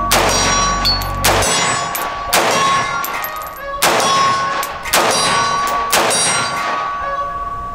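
Zaviar AR-47 rifle in 7.62x39 fired in a steady string of single aimed shots, about one a second, with steel targets downrange pinging and ringing on between the shots.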